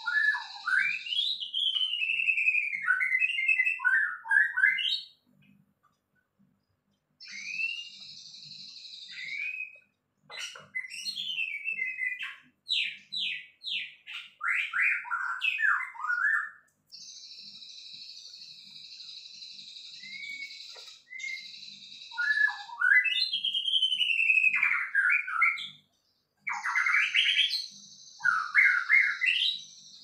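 Orange-headed thrush singing: several bursts of rapid, varied whistled and warbled phrases with short pauses between them. A steady high-pitched buzz sits behind the song at times.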